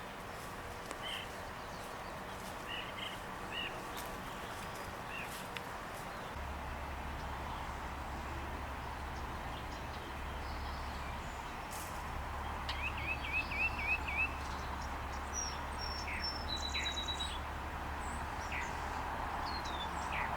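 Small songbirds chirping: scattered short chirps, then a quick run of about six rising chirps a little past the middle, followed by a few high, thin whistled notes, over a steady background hiss.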